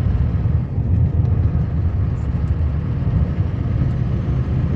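Steady low rumble of a vehicle driving, heard inside the cab, with engine drone and road noise from a bumpy, snow-covered gravel road.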